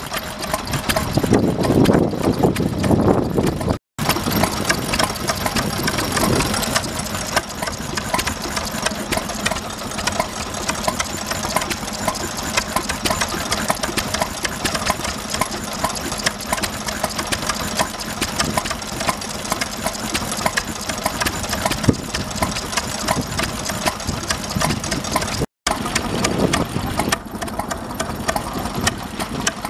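Vintage stationary engine running steadily with a rapid, regular beat. The sound drops out for an instant twice, about four seconds in and near the end.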